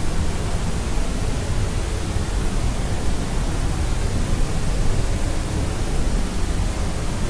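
Steady sleep white noise: an even, unchanging hiss with most of its weight in the low end, like pink noise.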